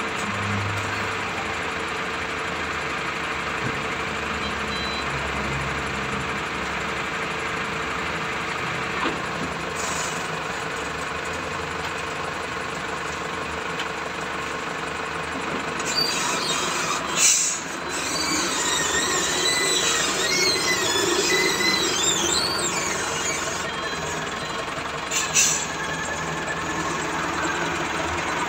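A compact wheel loader's diesel engine running steadily. Past the middle, a high, wavering squeal rises over it for several seconds.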